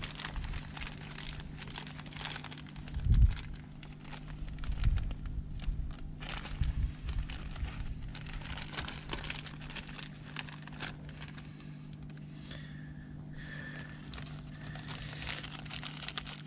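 Crinkling and clicking handling noise as small fastener parts are picked over and handled, with a few low thumps, the loudest about three seconds in, over a steady low hum.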